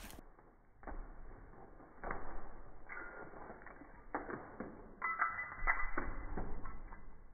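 Slowed-down, deepened sound of two dogs scrambling for a French fry: a string of muffled, drawn-out knocks and thumps, with a brief squeak-like tone about five seconds in.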